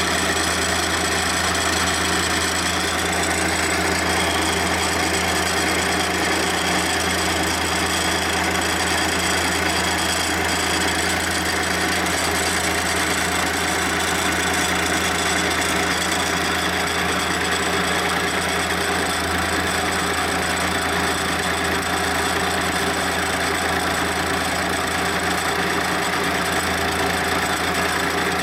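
Milling machine end mill cutting a flat into a heat-treated steel shank: a steady motor hum under the continuous scraping noise of the cut, which goes pretty hard through the hardened metal.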